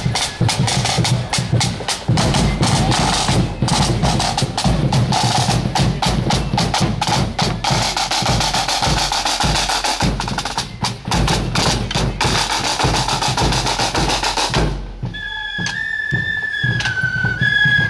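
Marching flute band's snare drums rattling and bass drum beating a march rhythm. About fifteen seconds in, the drumming falls away and the flutes strike up a stepped melody.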